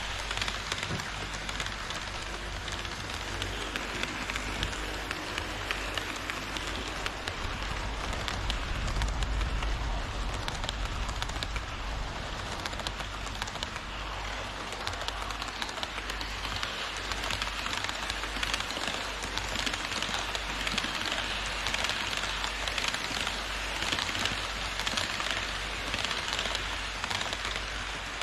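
HO scale model trains running on plastic viaduct track: a steady rattling of small metal wheels over rails and rail joints, with a deeper rumble about a third of the way through.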